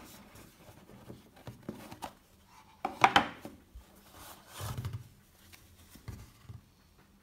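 A cardboard watch box being opened by gloved hands: light taps and scrapes of the lid and inner box. The loudest is a clattering rub about three seconds in, then a softer, duller rub a couple of seconds later as the watch is drawn out.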